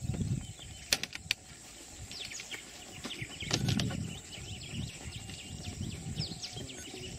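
Three sharp clicks about a second in, from a CO2 dart rifle being loaded, followed by many small birds chirping and a few soft thuds near the middle.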